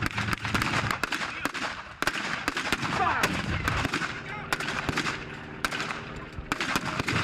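Gunfire of blank rounds in a mock battle: many sharp shots at irregular intervals, some in quick runs.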